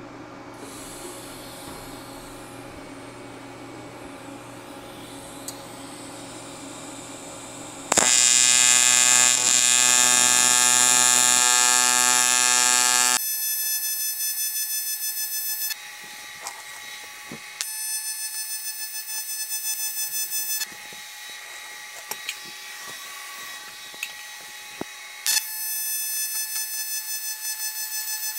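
AC TIG welding arc on aluminium: a steady hum for the first eight seconds, then a loud, even electrical buzz that strikes up about eight seconds in. The buzz changes tone and drops in level after about five seconds, then stops and restarts in runs of a few seconds each.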